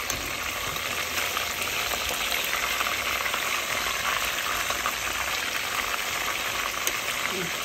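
Whitefish steaks frying in hot oil in a pot: a steady, dense sizzle full of fine crackles.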